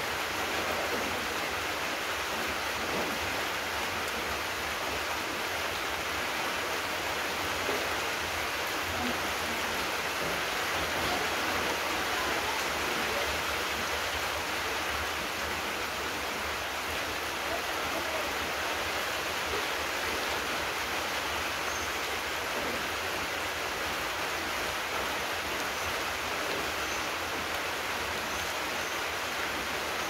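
Steady rain falling, an even hiss that holds at one level throughout.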